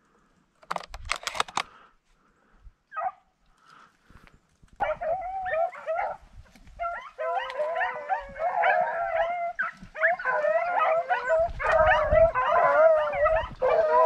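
Pack of rabbit-hunting dogs howling and baying, several voices overlapping, starting about five seconds in and running on loudly. Shortly before that, brief crackling of dry corn stalks being pushed through.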